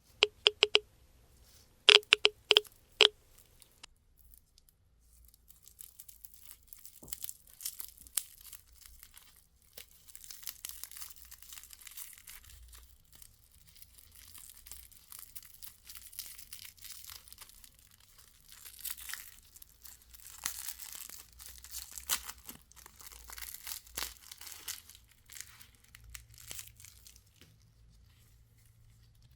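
Plastic candy wrappers being unwrapped, crackling and tearing in irregular rustling spells that swell and fade. A few short, loud beeps sound in the first three seconds.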